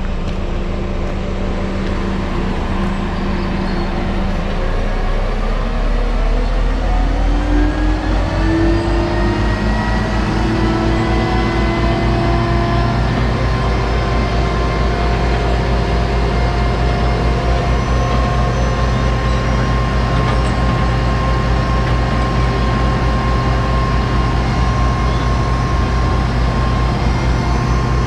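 Mobile crane's diesel engine running, its revs rising between about four and eight seconds in and then holding steady at the higher speed, with a thin whine above the engine note as the crane is worked to lift a boat.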